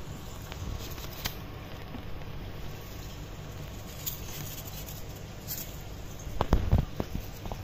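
Light scratching and pattering of a dwarf hamster moving over sand and plastic in its cage, with scattered small clicks. About six and a half seconds in, a short cluster of louder knocks and bumps as cage pieces are handled.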